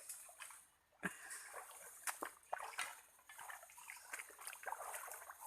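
Water splashing and trickling in small, irregular sloshes, with scattered light knocks, starting about a second in.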